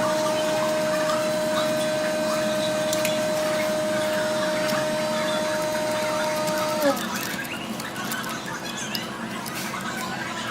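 A small electric motor-driven repair tool running at a steady pitch, then switched off about seven seconds in, its pitch sliding down as it spins to a stop. Light scattered clicks of handling follow.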